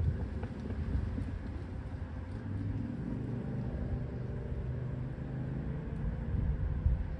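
Steady low rumble of distant road traffic in open-air ambience.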